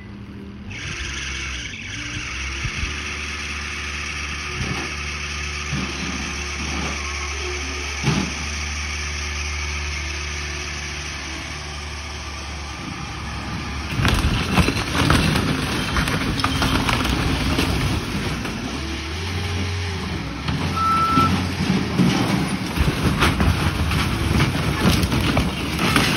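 Skid steer engine running steadily. About halfway through, loud repeated cracking and crunching sets in as the camper's body is torn apart, and the engine works harder under the load.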